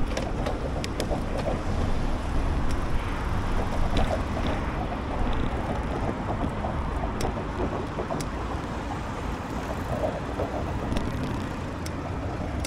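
Wind rumbling on the microphone of a camera riding along on a moving bicycle, with tyre and road noise and a few sharp clicks. It eases a little in the second half.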